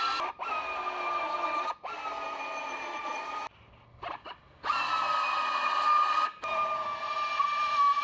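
Narrow belt sander (belt file) grinding through sheet steel, a steady whine that sags a little in pitch as the belt bites. It stops and restarts several times, with a pause of about a second in the middle.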